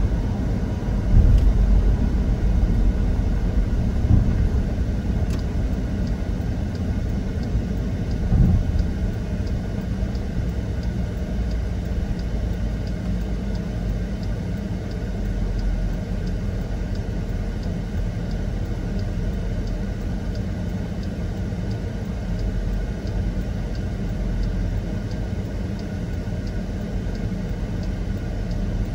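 Steady low vehicle rumble with a few heavy thumps in the first nine seconds. Faint, evenly spaced ticking runs through most of the rest.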